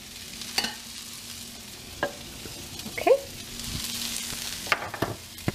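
Chopped onion sautéing in a frying pan, a steady sizzle that swells about four seconds in, with several sharp clicks of a utensil stirring against the pan.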